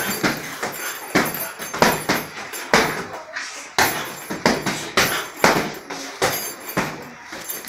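Boxing gloves smacking on gloves and padded headgear during sparring: an irregular run of sharp hits, one every half second to a second.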